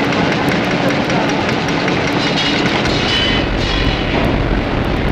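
Concrete brick-making machinery running with a loud, continuous mechanical clatter and a steady hum; a deeper rumble comes in about three seconds in.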